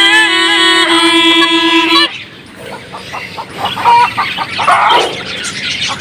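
Snake charmer's been (pungi), a gourd pipe with a drone, playing a wavering, nasal melody over a steady drone; it stops abruptly about two seconds in. A few short, loud bird calls follow near the middle and end.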